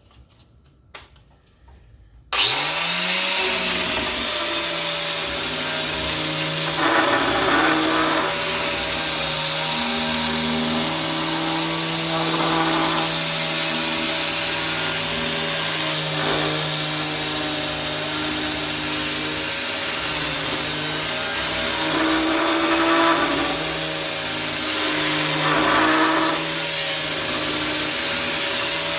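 Electric power sander switched on about two seconds in, spinning up quickly and then running steadily on the wood, with a few short rougher patches as it works the surface.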